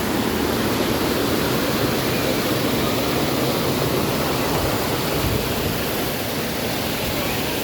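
Waterfall pouring steadily into a river: a constant, even rush of falling water.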